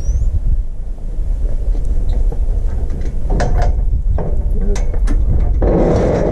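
Steel cattle squeeze chute with a calf in the headgate: a few sharp metal clanks and knocks, then a longer rattling clatter near the end.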